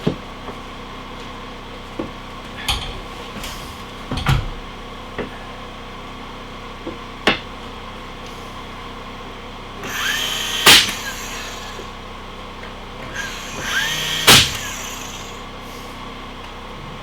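A power drill run twice, about three and a half seconds apart, each time speeding up and slowing down with a sharp click at the end, as when driving screws into wood. Scattered knocks of wood and tools come before it.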